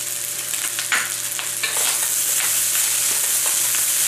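Rice frying in a wok with a steady high sizzle, while a spatula is stirred through it, giving scattered short scrapes from about a second in.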